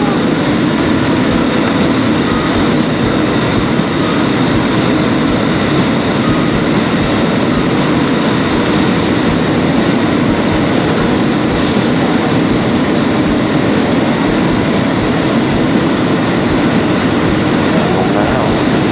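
Steady rushing cabin noise of an Airbus A320 airliner in flight on its approach to landing, from airflow and the engines, holding an even level throughout.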